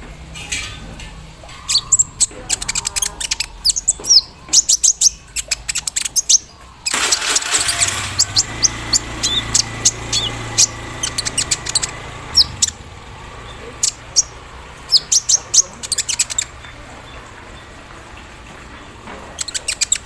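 Kolibri ninja sunbird singing: rapid runs of high, sharp chirps and trills in bursts separated by short pauses. About seven seconds in, a sudden loud rushing noise with a low hum breaks in and fades over several seconds while the chirping goes on.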